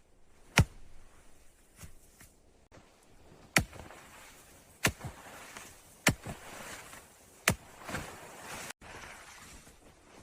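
A series of six sharp knocks, spread irregularly a second or so apart, over faint hissing noise.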